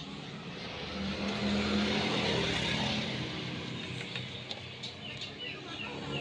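A motor vehicle engine running, growing louder about a second in and easing off again after about three seconds.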